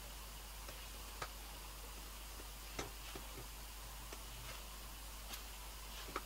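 Faint handling sounds of makeup application: a few scattered soft clicks and taps over a steady hiss, from a powder brush and a cardboard eyeshadow-style palette being handled.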